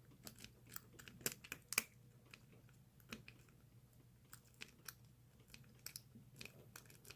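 Faint, irregular clicks and scratches of a snake rake being worked in the keyway of a Master Lock 580DLF padlock, the rake bumping over the pin stack.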